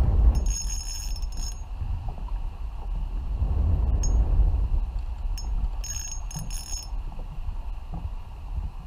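Spinning reel drag buzzing in two short high-pitched bursts as a hooked redfish pulls line, over a steady low rumble.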